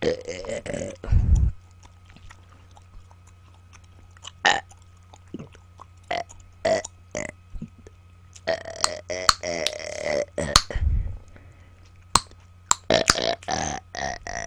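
A woman burping repeatedly: a long belch right at the start, more drawn-out belches from about two-thirds of the way in and again near the end, with short sharp clicks in between.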